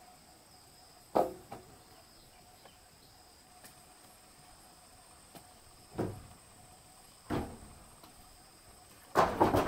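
Wooden rafter knocking against the timber frame as it is lifted and set in place. Single knocks come about a second in and around six and seven seconds, then a rapid run of knocks near the end. A faint steady insect drone runs underneath.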